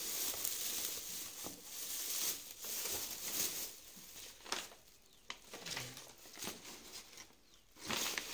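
Dry straw rustling and crackling as hands press it down into a cardboard box of packed mangoes, in uneven bursts that ease off midway. Near the end a sheet of paper crinkles as it is laid over the straw.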